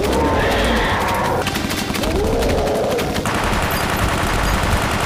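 Rapid, sustained automatic rifle fire, shot after shot with no break. Over the first three seconds a giant creature's roar rises and falls over the gunfire, and from about three seconds in the shooting thickens into a denser wash.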